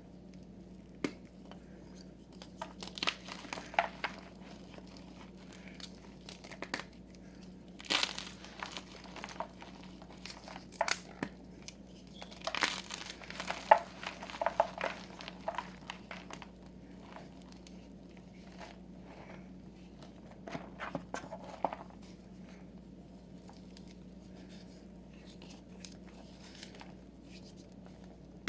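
Gym chalk crushed and squeezed by hand, crunching and crumbling in several short spells with pauses between. The last part is mostly quiet, and a faint steady hum runs underneath.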